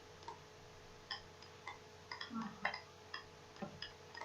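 Faint computer mouse clicks, about a dozen at an irregular pace, as edges are picked one by one in CAD software, over a steady low electrical hum.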